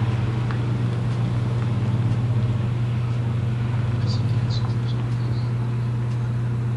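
A steady low mechanical hum, with a few faint, short high chirps about four seconds in and again near the end.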